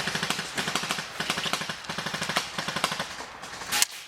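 Airsoft electric rifle firing full-auto in rapid bursts, a fast mechanical rattle of about a dozen or more shots a second in several strings with short breaks. A short, loud sharp noise comes near the end.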